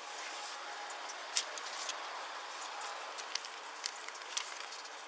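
Steady outdoor roadside noise on a body-worn camera microphone, with a few short sharp clicks about a second and a half in and several more in the second half.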